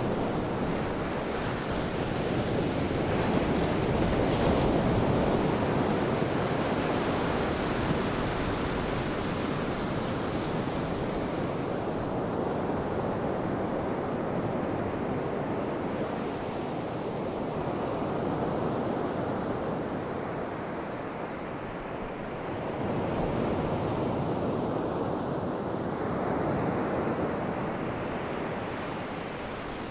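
Ocean surf breaking and washing up a sandy beach, swelling and easing in slow surges every several seconds.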